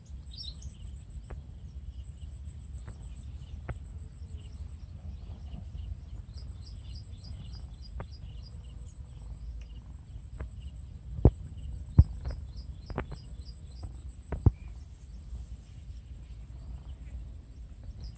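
Rural outdoor ambience: birds chirping in quick repeated runs and a steady high insect drone over a low rumble. A few sharp knocks come about two-thirds of the way through; they are the loudest sounds.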